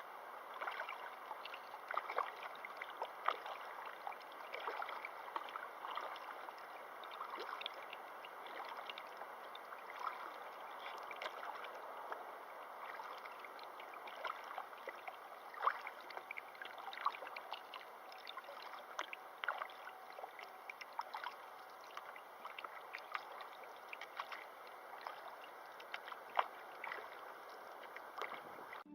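River water running, a steady rush with many small, irregular splashes and gurgles.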